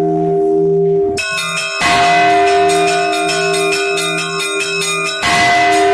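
Russian Orthodox church bells in a festive peal (zvon): small bells chime quickly over the ringing hum of the larger bells. A heavy bell stroke comes about two seconds in and again near the end.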